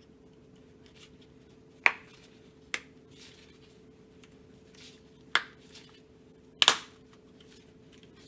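Plastic grip covers of a Magpul Hunter rifle stock being pressed into place. There are four sharp snaps spread over several seconds, the last a quick double and the loudest, from tight-fitting covers being forced home.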